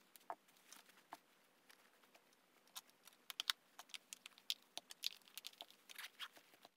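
Scissors snipping sewing thread near the start, then a small cloth pouch being handled and turned right side out: scattered soft rustles and light clicks of fabric, busier from about three seconds in.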